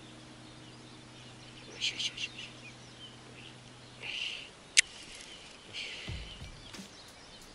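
Short bird calls over a faint outdoor background, with a single sharp click about five seconds in.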